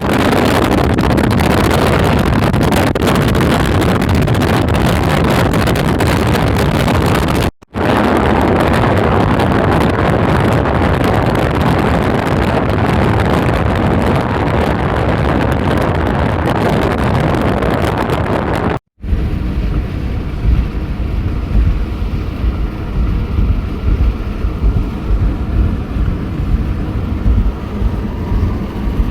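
Strong thunderstorm wind roaring and buffeting the microphone. It comes in three stretches split by two sudden, brief cuts; in the last third it turns to a lower, gusty rumble of wind hitting the microphone.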